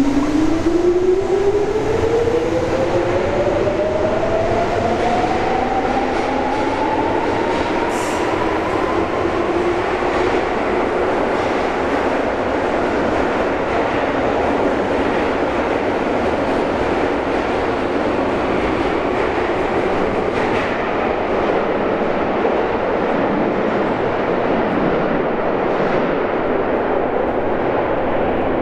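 Electric subway train pulling out of an underground station. The traction motors' whine climbs steadily in pitch over the first nine seconds or so as it accelerates. The running noise of the passing cars follows and grows duller over the last several seconds as the train draws away.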